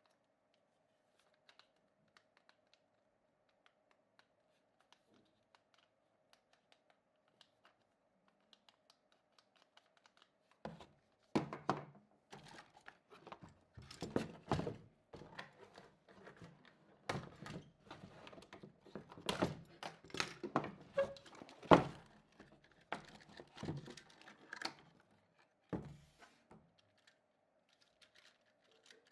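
Packaging being handled: irregular crinkling and tearing of plastic and cardboard, with knocks and thunks. It starts after about ten seconds of faint scattered ticks and dies away a few seconds before the end.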